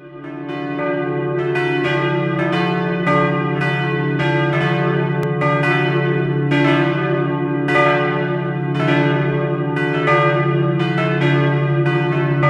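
Swinging bronze church bells in an open wooden bell frame, tuned d', e' and f-sharp' on straight headstocks and rung by hand. They strike in quick, irregular overlapping strokes, each left ringing, fading in over the first second.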